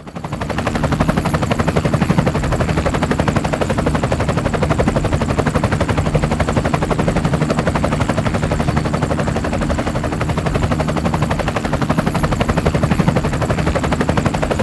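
Helicopter sound effect: a rapid, steady chop of rotor blades over a low drone, fading in during the first second.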